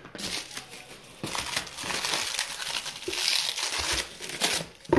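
Plastic bubble wrap crinkling and crackling as a hand pulls a small glass bottle out of its wrapping.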